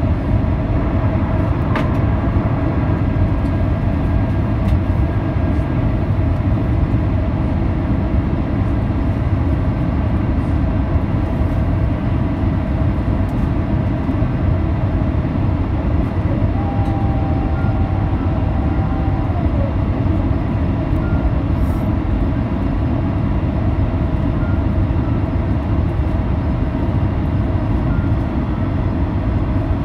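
Steady cabin noise inside an Airbus A350-900 on final approach with the landing gear down: its Rolls-Royce Trent XWB engines and the rushing airflow make a deep, even rumble with a few steady hum tones. A short whine sounds about halfway through.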